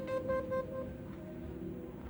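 Electronic melody from an itel A16 Plus phone's speaker: a run of quick beeping notes that fades out within about the first second, leaving faint soft tones.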